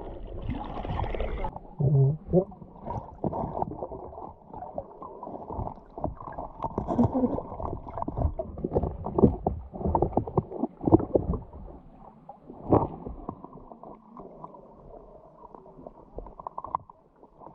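Muffled sloshing and gurgling water with irregular knocks and bumps, the sound dull as if heard through a camera held in or under the river water.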